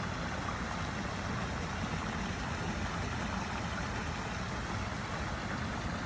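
Steady noise of a shallow creek's running water, with an even low rumble under it.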